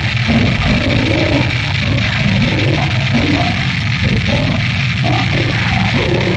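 Brutal death metal recording: a dense, loud wall of distorted guitars and drums with deep guttural growled vocals over it.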